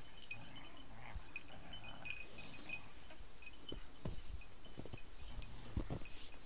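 Small bells tinkling irregularly, with soft low thumps from about four seconds in.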